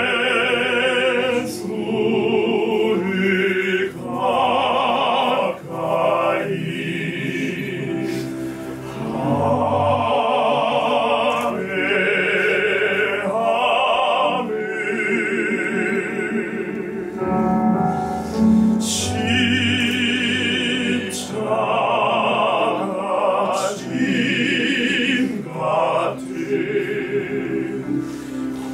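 Male vocal ensemble singing a hymn in a trained, classical style, with strong vibrato on long held notes, phrase after phrase.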